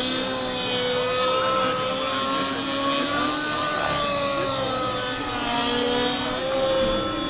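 Nitro engine and rotor of a T-Rex 700 RC helicopter running steadily in flight, a droning whine whose pitch wavers slightly up and down as it flies aerobatic manoeuvres.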